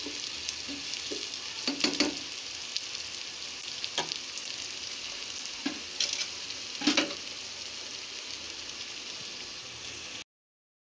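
Sliced onions sizzling in hot oil in a cooking pot as they start to brown, with a spoon scraping and knocking against the pot a few times as they are stirred. The sound cuts off abruptly near the end.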